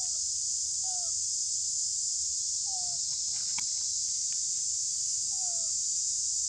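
Steady high-pitched insect chorus droning throughout, with four short falling whistled calls spaced a second or two apart and a few sharp clicks a little after halfway.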